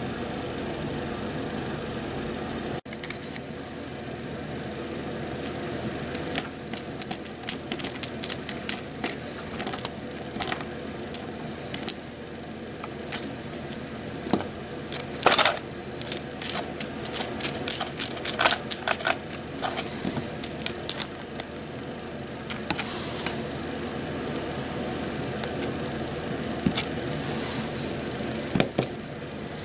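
Small metal tools tapping and clicking on a soldering bench: a long irregular string of sharp metallic ticks, some ringing briefly, over a steady background hum.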